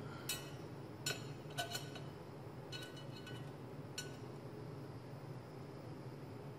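A folding ruler knocking against a microwave's glass turntable plate, giving a handful of light clinks with a short ring, the last about four seconds in.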